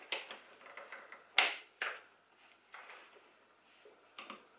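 GB Pockit Plus compact stroller being folded by hand: its frame gives several sharp clicks and knocks, the loudest about a second and a half in.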